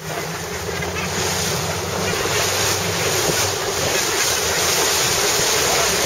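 Wind buffeting the microphone and sea water rushing past a moving boat, with a low steady boat-engine hum underneath that fades about halfway through.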